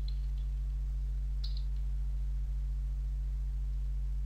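Steady low electrical hum, with a few light computer keyboard clicks near the start and again about a second and a half in, as a short comment is typed.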